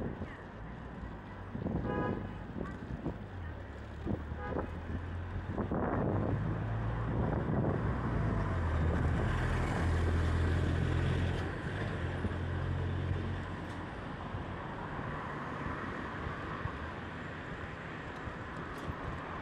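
City street traffic: a motor vehicle passes close with a low engine rumble that swells to its loudest about ten seconds in and then fades to a steady traffic hum. A short horn toot sounds about two seconds in.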